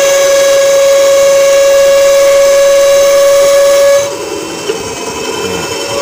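Mini band saw running with a loud, steady high-pitched whine: the rough noise ("suara kasar") of a badly adjusted machine. About four seconds in, as a hex key turns the adjusting bolt at the wheel and motor mount, the whine drops away and the saw runs quieter and rougher.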